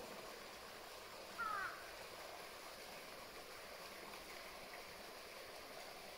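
Faint outdoor ambience, a steady hiss throughout, with one short call of falling pitch about a second and a half in.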